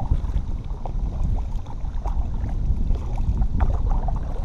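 Kayak paddle strokes, the blades dipping and splashing water, over a steady low rumble of wind on the microphone.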